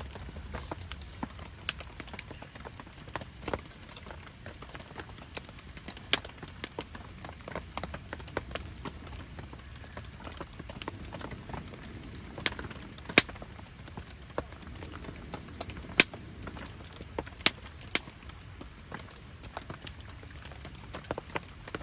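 Wood campfire crackling, with irregular sharp pops and snaps over a steady low background of rain.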